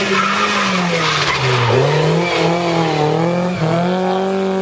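Historic rally car's engine held at high revs, its pitch dipping and climbing back twice as the driver lifts and shifts, with a hiss of tyres sliding through the corner.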